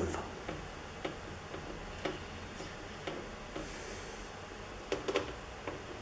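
Irregular small clicks and ticks of screws and metal parts being handled and tightened inside a computer case, a few every second, the loudest cluster near the end. A short faint hiss near the middle.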